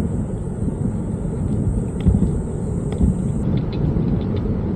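Wind buffeting the microphone of a moving bicycle as a low, uneven rumble, with a few faint ticks and a thin high whine that stops about three and a half seconds in.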